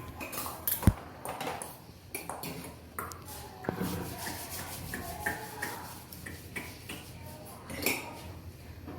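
A string of light clicks and metallic clinks from small hard objects being handled, with one sharp, louder click about a second in.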